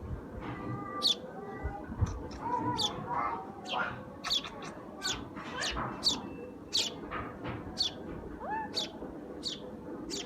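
Sparrows chirping repeatedly: short, sharp high chirps that sweep downward, about one and a half a second, with a few lower calls in the first half.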